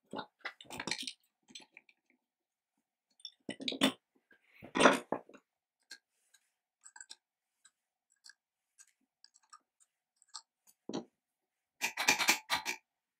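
Small steel parts of a chain mortiser clicking and clinking as they are handled and fitted by hand. Scattered light ticks, with louder clusters near the start, about four and five seconds in, and near the end.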